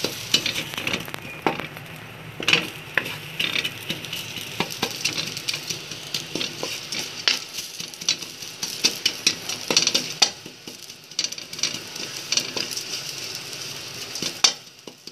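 Wooden spatula scraping and tapping against a steel pot as it crushes crisp, dry fried onions, a quick irregular run of scrapes and clicks over a steady hiss. One harder stroke comes near the end.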